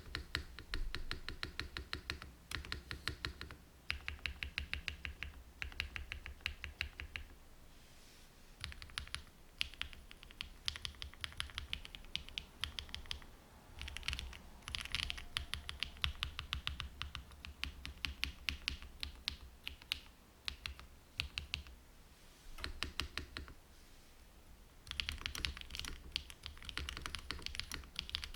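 Typing on a gasket-mounted aluminium mechanical keyboard with stock Opal switches, full aluminium plate and GMK keycaps, no foam or dampening: rapid runs of key clacks in bursts, with short pauses between them.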